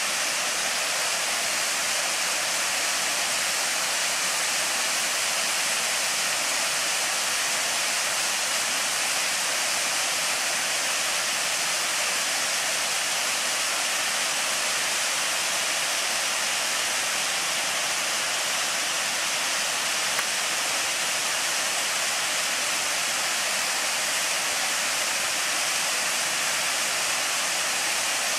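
Waterfall's steady rush of falling water, an even hiss that stays the same throughout.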